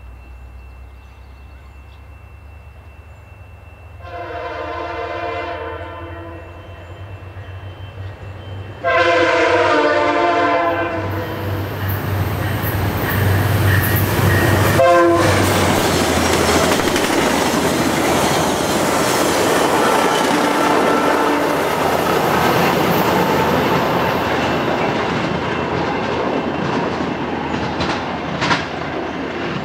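VIA Rail passenger train led by an F40 diesel locomotive passing at speed. The horn sounds twice, a chord about four seconds in and a louder one about nine seconds in, with the engine rumbling as it approaches and sweeps by about fifteen seconds in. The coaches' wheels then clatter over the rail joints, slowly fading as the train moves away.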